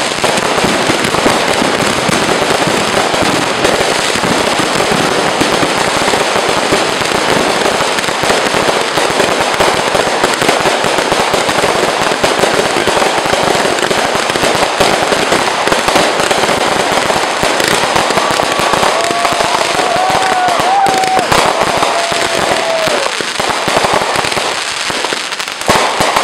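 Aerial fireworks bursting close overhead in a dense, unbroken barrage: continuous loud crackling and popping with no pause between bursts.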